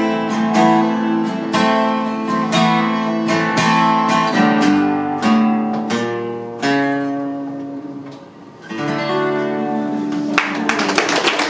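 Acoustic guitar playing the instrumental outro of a folk-rock song, strummed chords. Partway through, one chord is left ringing and fading before the playing picks up again.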